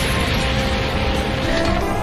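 Loud anime soundtrack music with held notes, over a dense noisy rumble of battle sound effects.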